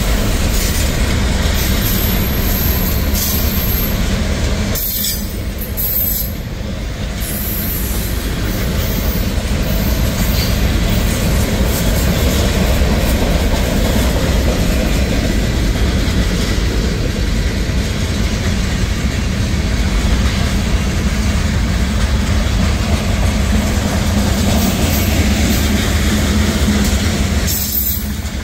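Freight train cars (tank cars and covered hoppers) rolling past at a steady pace: a continuous noise of steel wheels running on the rails, heaviest in the low end, easing slightly for a moment about five seconds in.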